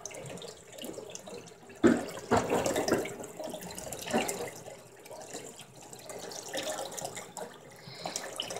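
Kitchen tap running into a sink full of dishes, with a few short knocks about two and four seconds in.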